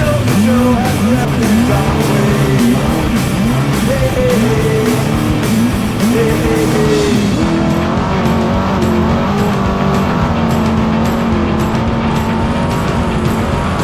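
Trophy truck engine revving up and down over and over, then holding a steadier pitch from about halfway in, with music playing over it.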